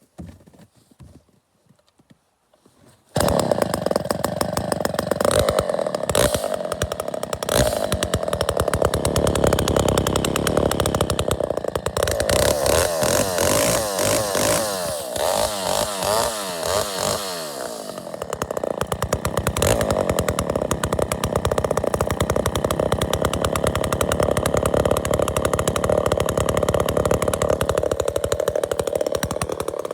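Allis-Chalmers 195 (a rebranded Poulan 306A) two-stroke chainsaw, starting abruptly about three seconds in after a few faint clicks, then running. Its pitch wavers and falls through the middle before it settles into a steady run.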